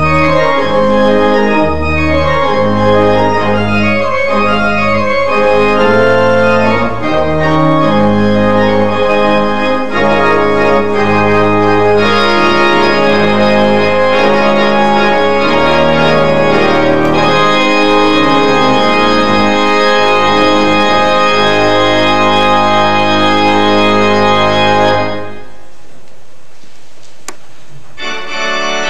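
Church organ playing full sustained chords over deep bass notes. The music cuts off about 25 seconds in and the sound dies away into a short pause, then the organ starts playing again near the end.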